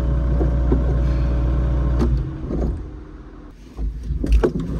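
A car engine running steadily with a low drone, which fades away about two seconds in; a few low thumps follow near the end.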